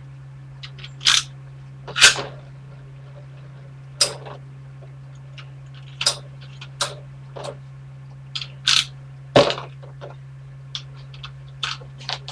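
A dozen or so short, irregular clicks and knocks over a steady low hum.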